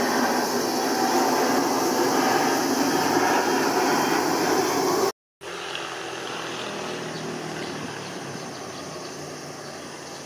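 Jet engines of an Embraer 170 regional airliner on landing approach, a steady rumble. It drops out abruptly about five seconds in and comes back quieter.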